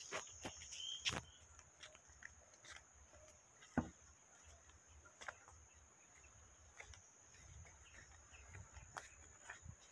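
Scattered light knocks and scuffs of a rough wooden fence stake being handled and stood in a freshly dug hole in damp soil, with one sharper knock about four seconds in. A steady high insect drone runs underneath.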